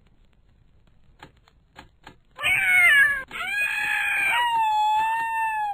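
A cat meowing twice: first a short call falling in pitch, then a longer drawn-out call that holds its pitch and cuts off suddenly.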